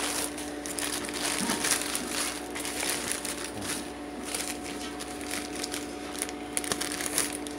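Thin plastic courier bag crinkling and rustling in an irregular run of crackles as it is handled and pulled about.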